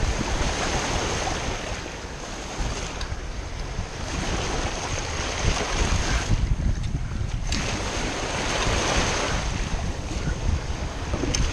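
Shallow surf washing and foaming in surges, with wind buffeting the microphone in a heavy low rumble; the wash eases briefly past the middle, then builds again.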